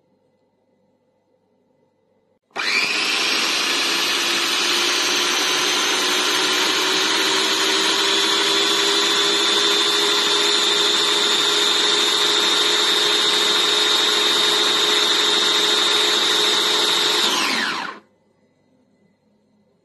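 Idealife IL 216 electric food chopper running for about fifteen seconds as it minces chicken, its motor whine steady and edging slightly up in pitch. It starts suddenly a couple of seconds in, then winds down and stops near the end.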